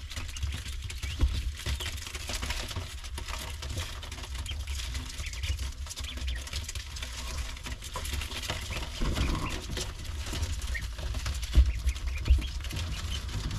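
Farmyard ambience: faint bird calls over a steady low rumble, with a couple of louder thumps near the end.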